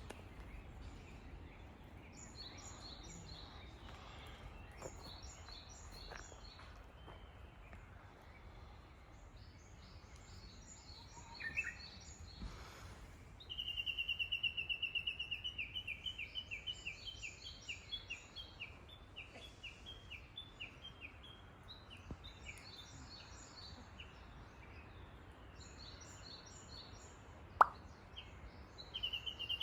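Small songbirds singing repeated short high phrases, with a loud rapid trill starting about halfway through, over a faint steady outdoor background. A single sharp tap, like a water drop, near the end.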